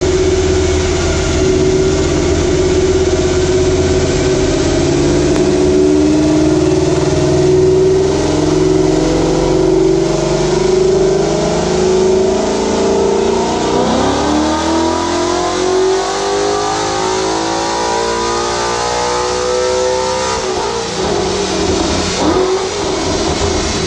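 A 2012 Ford Mustang Boss 302's 5.0 L V8, tuned for E85, making a full-throttle pull on a chassis dyno. Its pitch climbs steadily, breaks about 14 seconds in and climbs again more steeply, and the throttle closes about 20 seconds in.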